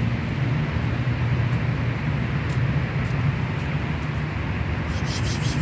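A steady low rumble with an even hiss over it, and a few faint ticks.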